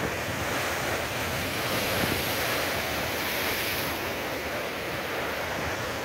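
Storm surf on the Mediterranean breaking and washing over concrete breakwater blocks, a continuous rushing wash that swells briefly midway, with wind buffeting the microphone.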